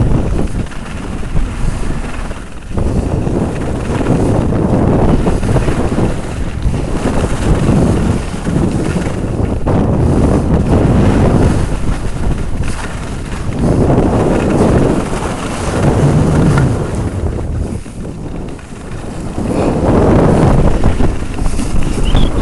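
Loud wind rushing over the microphone of a camera moving fast down a ski slope, mixed with the hiss of snowboard edges carving across packed snow. The noise swells and eases in waves, dipping briefly near the end before rising again.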